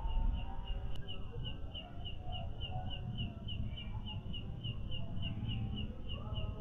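An insect chirping in an even rhythm, about four to five short high chirps a second, over a low rumbling background noise.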